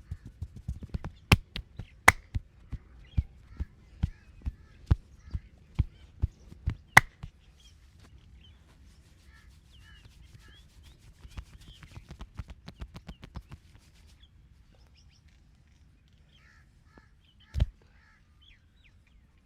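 Percussive massage strokes: hands slapping and tapping rhythmically, a few strikes a second, with several louder sharp cracks. A quicker flurry of taps follows, then one heavy thump near the end. Birds, crows among them, call in the background.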